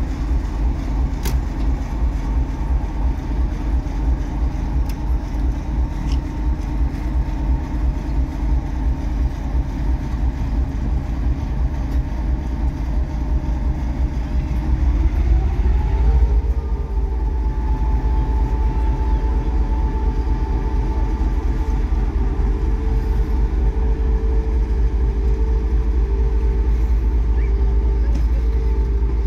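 A TEP70 diesel passenger locomotive's engine runs with a heavy low rumble. About halfway through, its note rises as the engine is throttled up to pull the train away. It then holds a steady, higher hum.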